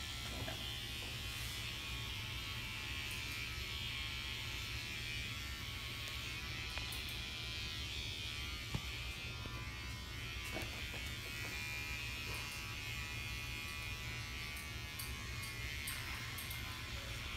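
Electric hair clippers buzzing steadily while cutting a boy's hair.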